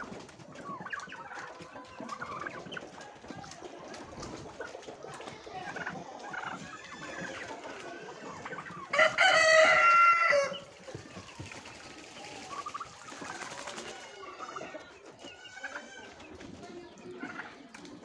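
Chickens clucking, with a rooster crowing once, loudly, for about a second and a half halfway through.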